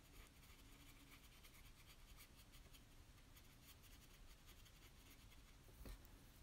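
Near silence with faint, quick strokes on watercolour paper as the painting is worked, and one small click near the end.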